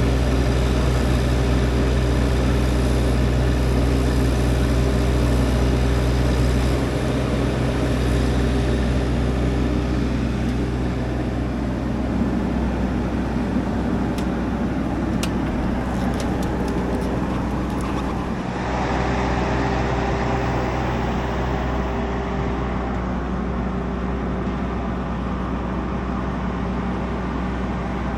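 An engine running steadily, its note shifting a couple of times, with a few faint ticks partway through.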